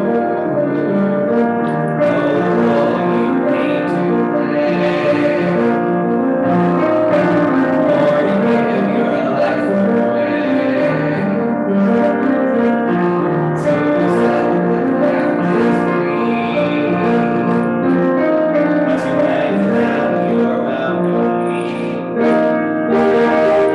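Piano music: an upright piano playing a continuous piece with sustained chords.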